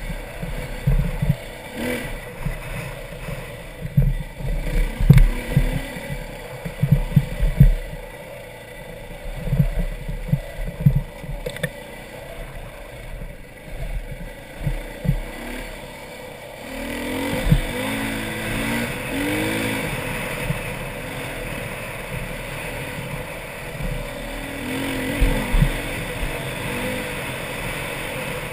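Dirt bike engine running under way over rough ground, with irregular low thumps and jolts for the first half. About two thirds of the way in the sound fills out, and the engine note bends up and down with the throttle as the bike picks up speed.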